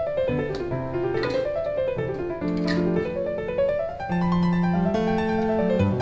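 Background piano music: quick rising and falling runs of notes over held low bass notes.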